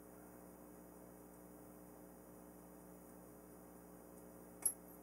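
Faint steady room hum, with one sharp small click near the end from hand work threading a screw into the model's wing joint with a hex driver.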